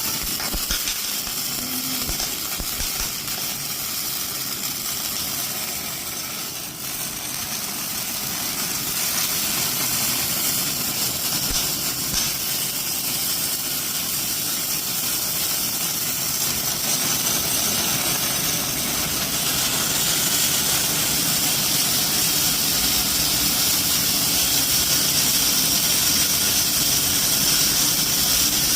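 Automatic servo-controlled welding machine at work: a steady, noisy hiss, strongest in the upper range, that grows a little louder after about eight seconds and again around twenty seconds.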